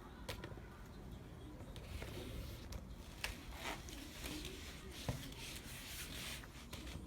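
Faint rubbing and scraping with a few light clicks scattered through it.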